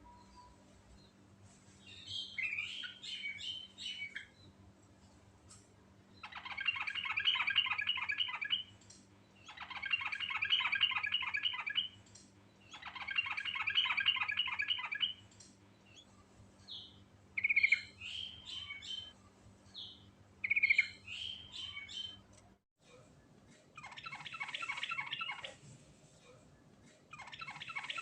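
Trucuk (yellow-vented bulbul) singing: five rapid, chattering trilled phrases of about two seconds each, with short sharp chirps between them.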